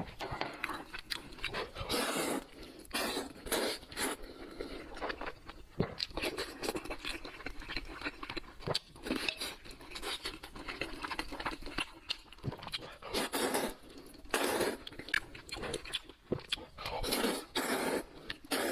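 A person eating: chewing and crunching, with irregular bursts and sharp clicks.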